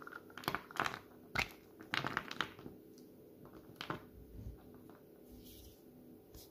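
Hollow Milka milk-chocolate Santa figure being snapped apart by hand: a quick run of sharp cracks and small pieces clicking onto the tabletop over the first two and a half seconds, then one more crack near four seconds.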